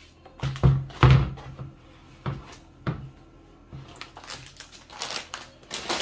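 White plastic baskets and shopping items being handled and set down on a table: a string of irregular knocks and clatters, the loudest two about half a second and a second in.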